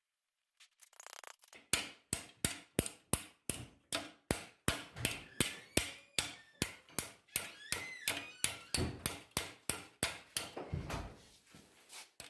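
Hammer blows on steel being forged, a steady run of sharp strikes at about three a second with a metallic ring. It starts after a short pause and stops shortly before the end.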